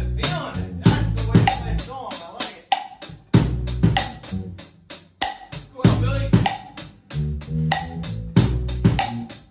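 A live band jam: a drum kit played with kick, snare and cymbal strikes on a steady beat, over bass guitar and electric guitar.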